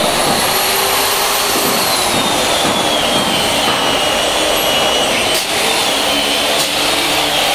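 Handheld electric drill running steadily while drilling into a stair step, a loud high whine that dips slightly in pitch about two to three seconds in.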